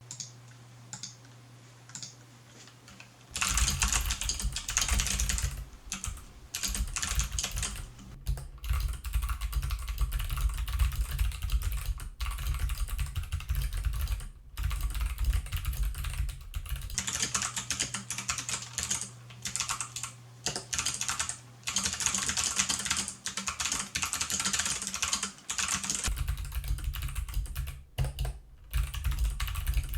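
Fast typing on a Tofu60 60% custom mechanical keyboard with Kailh Box Jade clicky switches: a dense stream of sharp clicks with short pauses. The first three seconds hold only a few light taps before the fast typing starts.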